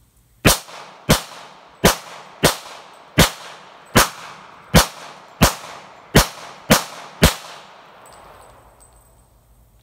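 FN semi-automatic pistol in .40 S&W fired eleven times in steady succession, about a shot every two-thirds of a second, each with a short echo; after a pause one more shot comes at the very end.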